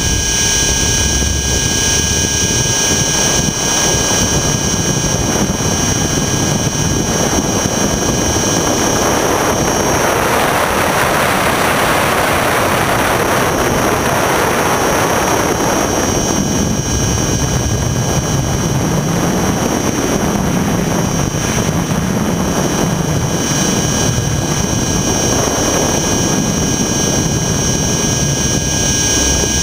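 Align T-Rex 600 ESP electric RC helicopter in flight, heard from a camera mounted on its own frame: the drive and rotor make a steady, high whine. A rush of wind swells a third of the way in and dies away a few seconds later.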